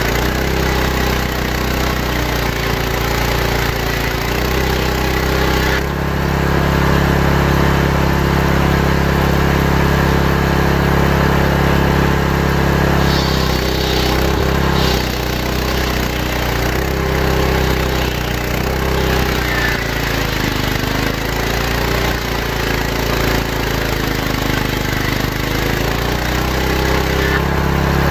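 Table saw with a large circular blade ripping santol-wood planks into boards: a steady, loud machine drone that dips in pitch a few times as the blade cuts.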